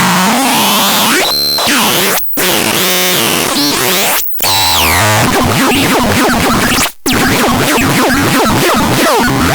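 Loud, harsh electronic noise with many sweeping, gliding synthesized tones layered over each other, cutting out abruptly for an instant three times.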